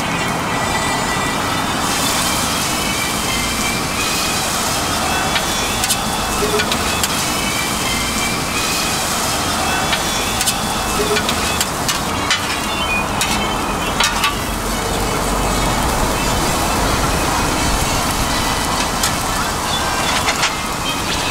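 Pork tripe, noodles and vegetables sizzling steadily on a hot, steaming flat-top griddle, with occasional sharp clicks and scrapes of the cooking utensils on the plate.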